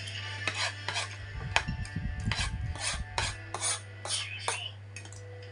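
Short scraping and rubbing noises close to the microphone, with soft low bumps in the middle, over a steady low hum.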